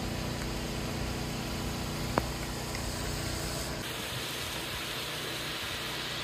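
Steady low machine hum under a hiss, with a single sharp click about two seconds in. Near four seconds the hum drops away and a brighter, higher hiss takes over.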